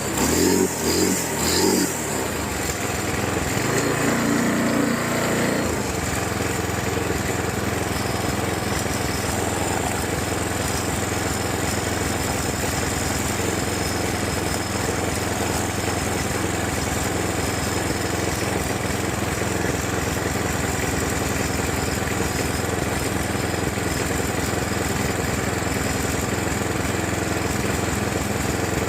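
Craftsman walk-behind lawn mower's small single-cylinder engine running. It is louder and uneven for the first few seconds, then settles into a steady run.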